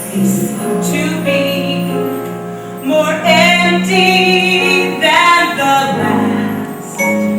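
Stage-musical ballad: a woman's voice singing slow, held notes with vibrato over instrumental accompaniment.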